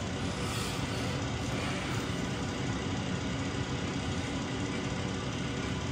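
A steady low mechanical hum, with no distinct clicks or knocks over it.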